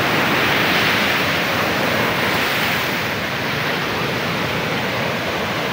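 Surf breaking and washing up a sandy beach, a steady rush that swells in the first few seconds and then eases slightly.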